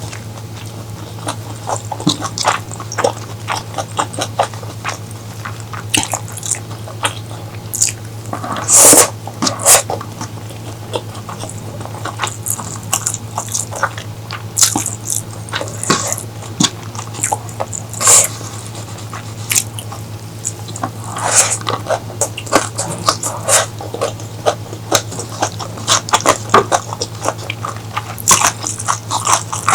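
Close-miked eating sounds: a person biting and chewing food, with many short wet mouth smacks and clicks and a louder burst about nine seconds in. A steady low hum runs underneath.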